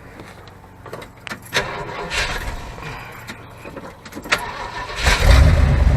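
Ford 400 V8 truck engine cranked over by the starter for a few seconds, catching about five seconds in and settling into a steady run, now firing on all eight cylinders with its spark plug wires put back in firing order; it sounds better.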